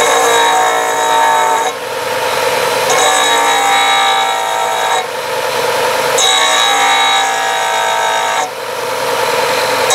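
Ryobi disc sander running with a steady motor tone while a cured resin egg is pressed against the spinning disc to grind facets. This happens in three passes of about two seconds each, and each pass adds a high, shrill grinding whine that drops away briefly between them.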